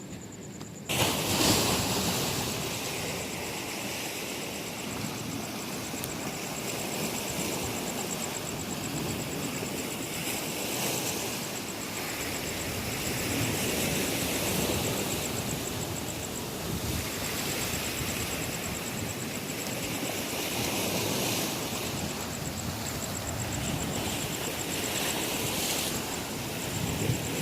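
Rough sea waves washing against the harbour, with wind on the microphone: a steady rushing that sets in abruptly about a second in, then gently swells and eases.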